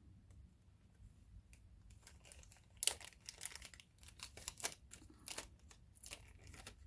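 Packaging around a strand of crystal bicone beads crinkling and rustling as it is handled. The irregular crackling starts about three seconds in, after a quiet start.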